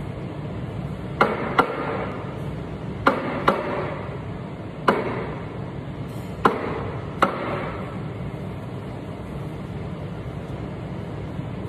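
Sharp knocks and clinks of cups and tools being handled at an espresso machine, seven in all and several in pairs, each with a short ringing tail, over a steady background hum.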